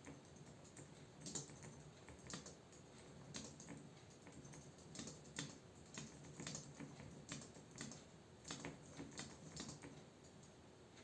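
Typing on a computer keyboard: irregular key clicks, a few a second, soft and close.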